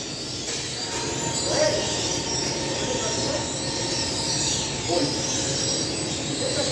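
Steady running noise of a commercial bakery's bread oven and extractor hood, with faint high metallic squeaks.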